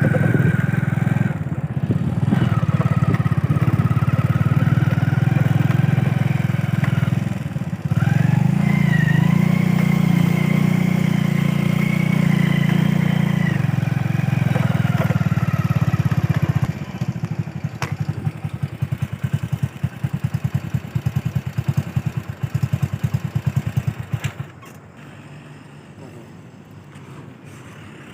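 Vehicle engine running with a whine that rises and falls, then settling into an even putter; the sound drops much quieter near the end.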